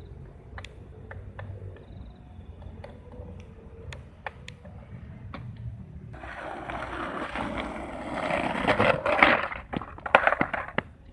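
Skateboard wheels rolling on rough asphalt, starting about six seconds in and building in loudness, with several sharp clacks of the board near the end.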